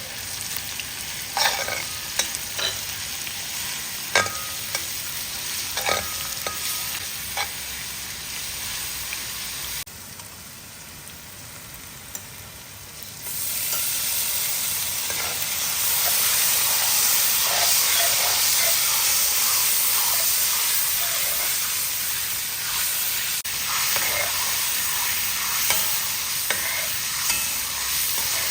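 Hot oil sizzling in a pan, with a metal utensil tapping and scraping now and then. About ten seconds in the sizzle drops back for a few seconds, then comes back as a louder, steadier hiss for about ten seconds before the tapping returns.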